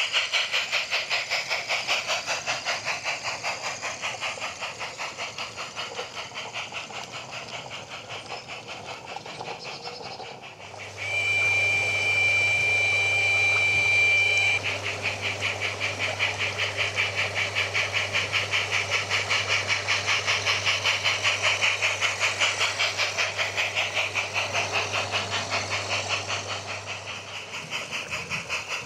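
Simulated steam-locomotive chuffing from a MyLocoSound sound card in a battery-powered, radio-controlled garden-railway saddle tank: a fast, even exhaust beat, broken about eleven seconds in by a steady whistle blast of some three and a half seconds, after which the chuffing resumes.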